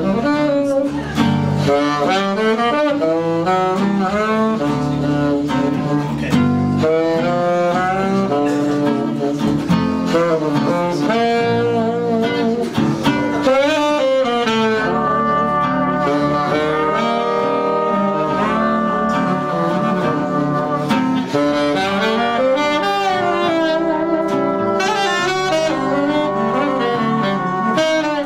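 Small Dixieland jazz band playing: trumpet, trombone and a reed instrument weaving melody lines over a walking string-bass line and rhythm strings.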